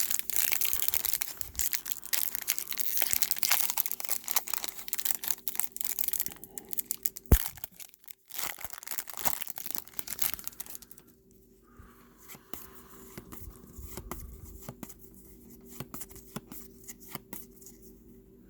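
Trading-card pack wrappers being torn open and crinkled, a dense crackling that runs for about six or seven seconds, with one sharp snap about seven seconds in. After that the handling goes much quieter, with only sparse ticks and rustles.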